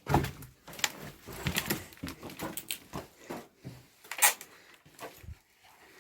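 Irregular clatters, crunches and knocks of debris in a ruined, partly collapsed house, the loudest right at the start and about four seconds in.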